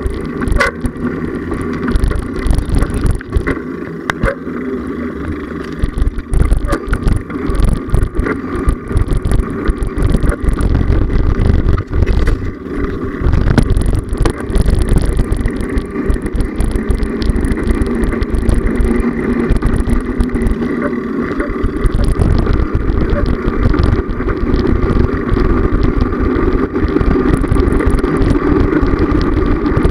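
Bicycle riding over a paved path, heard through a handlebar-mounted camera: a steady low rumble of road vibration and wind, with frequent small knocks and rattles from the bike.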